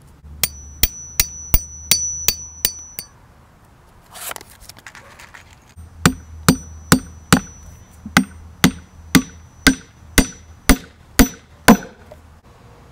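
A hammer strikes a metal setting tool seven times in quick succession, each blow ringing, setting a metal fastener in a leather tab. Then a hammer drives a nail into a wooden lid with about twelve steady blows, roughly two a second.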